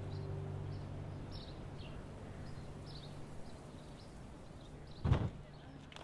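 Sustained low background-music notes fading out in the first second, with small birds chirping faintly and repeatedly throughout. A single heavy thud about five seconds in.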